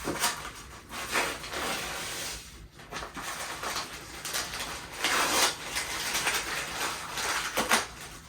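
Irregular rustling, scuffing and light knocks of someone moving about in a cramped attic and handling building materials, with a few louder scrapes, one a little after a second in and a longer stretch around the middle.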